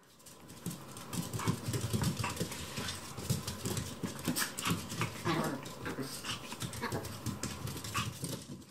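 A tiny Chihuahua and a Maltese play-fighting: scuffling and quick ticking of claws on a hard floor, mixed with brief dog vocal sounds.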